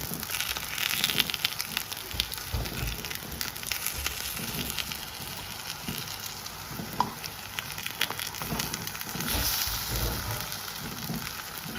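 Food frying in hot oil in a pan, a steady sizzle with many small crackles and pops, and a few dull knocks from stirring or handling the pan.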